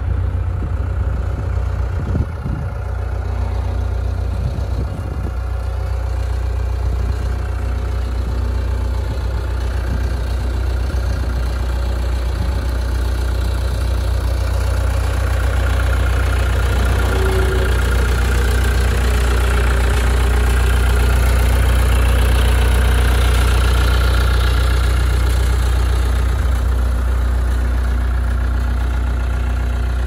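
Caterpillar 277B compact track loader's turbocharged diesel engine idling steadily, a little louder for a while midway.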